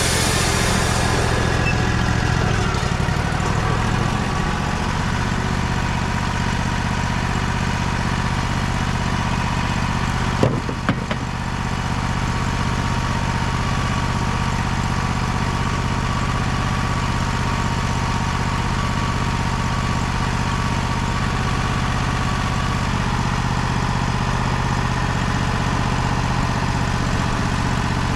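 An engine running steadily at idle. A high hiss fades out in the first second or two, and two sharp knocks come about ten seconds in.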